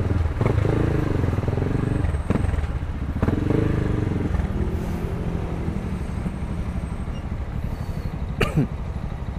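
Motorcycle engine running in slow city traffic, with a low steady drone whose pitch rises and falls a little as the bike moves and stops. A brief sharp noise cuts in about eight and a half seconds in.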